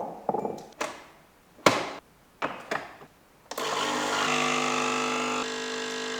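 A few sharp clicks and knocks, then a small electric coffee appliance's motor runs steadily for nearly three seconds. Its tone steps down slightly shortly before it stops.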